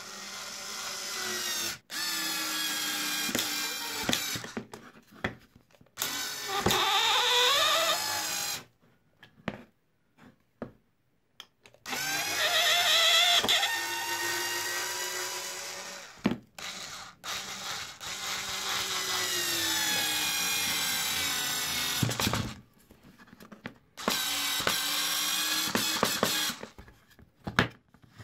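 Cordless electric screwdriver with a planetary gearbox, repowered with lithium 18650 cells, driving screws into chipboard: about six runs of motor and gear whine a few seconds each, the pitch shifting as the screw takes load, with short clicks in the gaps between runs.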